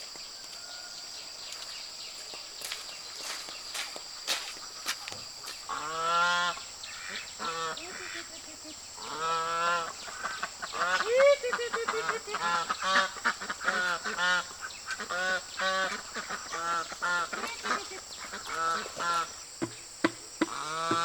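Domestic geese or ducks giving a long run of repeated honking calls, starting about six seconds in. A steady high-pitched buzz, like insects, is heard before the calls begin.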